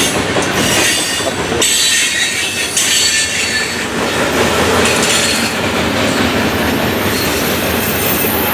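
Covered hopper cars of a freight train rolling past close by: a steady loud rumble and clatter of steel wheels on the rails. A thin high wheel squeal comes in toward the end.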